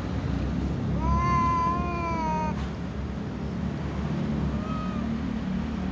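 Ginger cat giving one long, drawn-out meow about a second in, begging to be fed, then a brief faint call near the end, over a steady low rumble.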